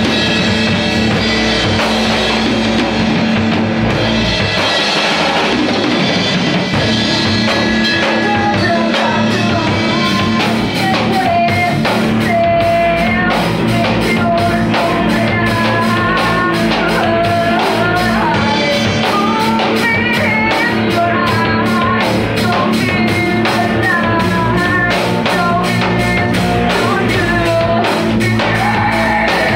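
Rock music with a drum kit and guitars playing steadily. From about ten seconds in, a melodic lead line winds up and down above the band.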